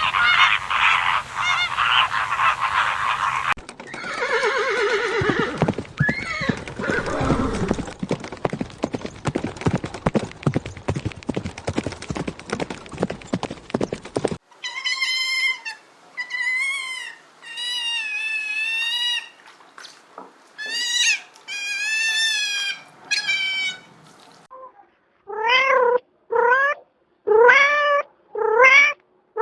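A run of different animal calls one after another: goose honking for the first few seconds, then a noisy stretch and a series of wavy, pitched calls from animals that cannot be named, and near the end a string of short, rising cat meows.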